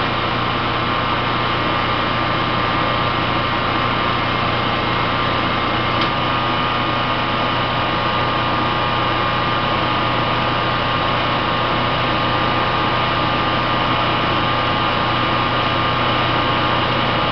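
Generac Guardian 15 kW standby generator running at a constant speed: a steady engine hum with a higher steady tone above it, unchanging throughout, with one faint click about six seconds in.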